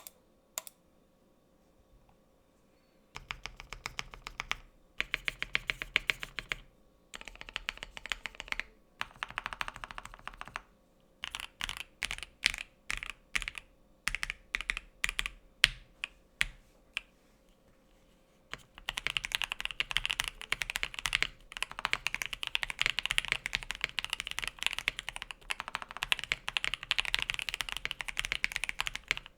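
KBD67 Lite R2 mechanical keyboard with lilac switches and ePBT black-on-white keycaps being typed on for a sound test, with a deep, thocky sound. A couple of single key clicks come first, then runs of rapid key presses broken by short pauses and single strokes, then steady continuous typing for the last third.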